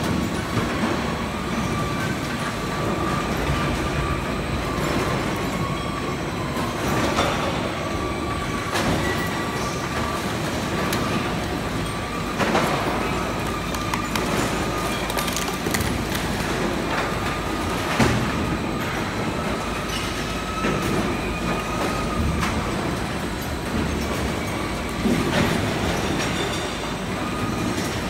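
Heavy machinery running steadily: a rumbling, clattering noise with a high whine held at one pitch for long stretches and scattered knocks, as a mini excavator with a grab works, loading mixed waste into a sorting-line hopper.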